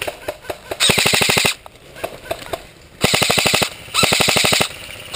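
Airsoft rifle firing three short full-auto bursts, each a rapid even stream of shots lasting well under a second, with a few scattered single shots before the first burst.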